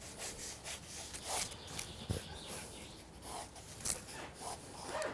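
Pencil lead scratching and rubbing across a paper pad in irregular sketching strokes, with a soft knock about two seconds in.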